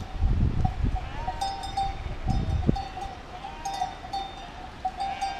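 Many bells on a walking flock of sheep clanking and ringing continuously, with a sheep bleating once or twice. There are a few brief low rumbles in the first few seconds.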